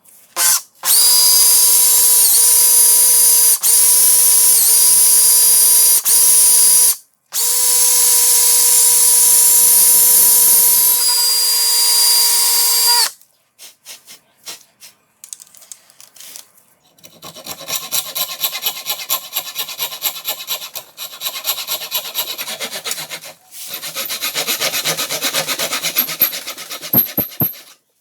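A small electric power tool running at a steady high-pitched whine, dipping briefly in pitch four times as it takes load, stopping for a moment about seven seconds in and shutting off near the middle. It is followed by a longer stretch of quieter, irregular scraping on the workpiece.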